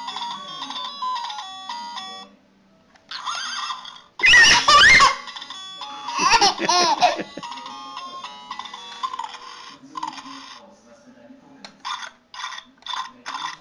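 An electronic toy plays a stepped beeping tune while a toddler laughs and squeals, loudly about four seconds in and again around six to seven seconds. Near the end the toy's sound turns to a quick run of short pulses.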